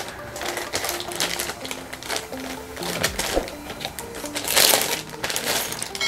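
Clear plastic packaging bag crinkling and rustling in the hands as a travel wallet is slid out of it, loudest about four and a half seconds in. Background music plays throughout.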